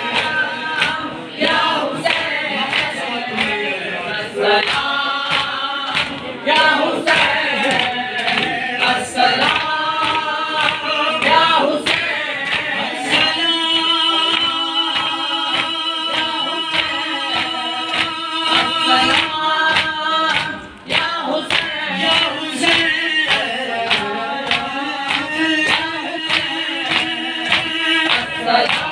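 A group of men chant a noha, a lament for Imam Hussain, in unison, with long held notes partway through. Steady rhythmic slaps of hands striking chests (matam) keep the beat.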